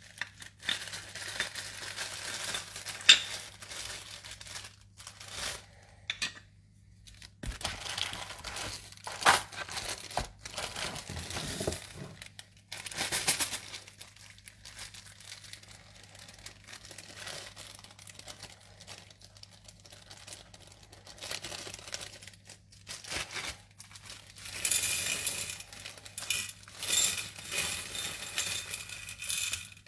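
Plastic packaging crinkling and tearing in irregular bursts as it is pulled off by hand and a small bag is opened. Near the end, small decorative stones rattle and clink into a ceramic dish.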